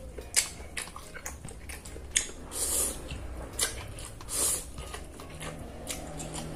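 Close-up eating sounds: fried instant noodles slurped from a plastic fork, and chewing, with several short hissy slurps and a few sharp wet mouth smacks.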